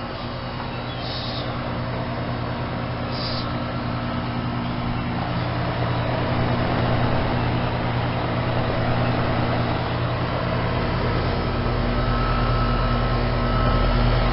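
Outdoor heat pump unit running in heat mode, compressor and condenser fan both on: a steady mechanical hum under a rushing fan noise, growing gradually louder.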